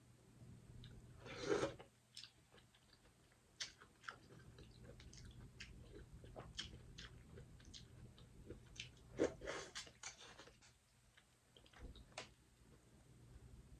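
A person quietly chewing and eating seafood, with scattered small clicks and two louder crunching bursts, one near the start and one about two-thirds of the way through.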